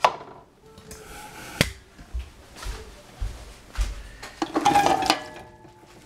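Cut guava pieces dropped into an empty stainless steel pressure-cooker pot: single knocks and dull thuds against the metal, then a quick clatter with the pot ringing briefly about four and a half seconds in.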